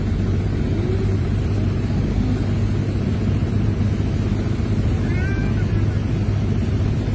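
Steady low rumble of a vehicle's engine and running noise, heard from inside the cab as it drives slowly through floodwater. About five seconds in, a brief high wavering squeak.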